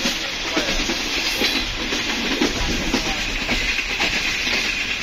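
Passenger train coach running at speed: a steady rumble and rush of wheels on the track and moving air, with some clickety-clack, heard through the coach's open window.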